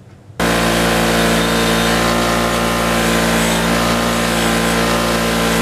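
Electric wire wheel spinning with a rusty steel bolt held against it, brushing the rust off: a steady motor hum under an even scouring hiss. It starts suddenly about half a second in.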